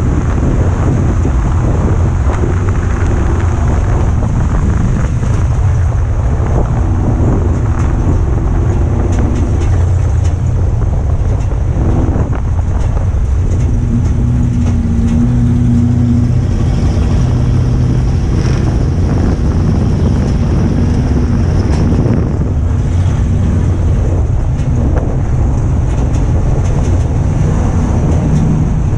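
Ford Crown Victoria's V8 engine at race pace, heard from inside the stripped cockpit: a loud, steady low rumble whose note rises and falls through the turns, with wind noise over it.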